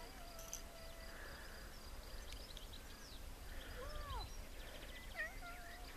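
A long-haired ginger cat giving soft meows: a faint arching one about four seconds in and a wavering one near the end, with faint bird chirps behind.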